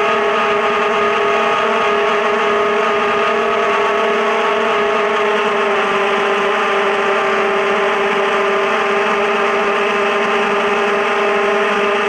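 ZMR250 quadcopter's brushless motors and propellers whining steadily in flight, the pitch shifting slightly with throttle.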